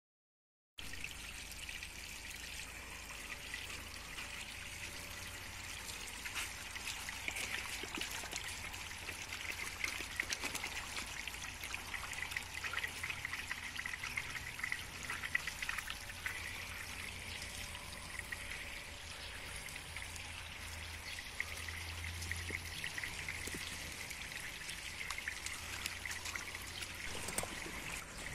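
Water running from a garden hose into a shallow dog paddling pool: a steady trickling splash, starting about a second in.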